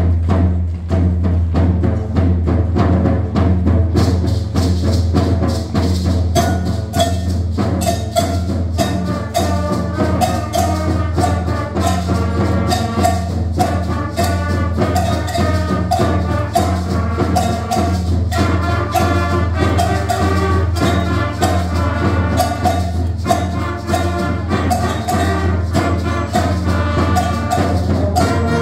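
Seventh-grade concert band playing an arrangement of a Liberian folk song, with woodwinds, brass and several percussion instruments together.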